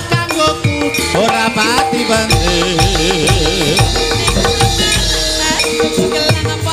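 Javanese gamelan music: a female sinden sings with a wavering vibrato through a microphone over steady metallophone tones and repeated deep hand-drum strokes that drop in pitch.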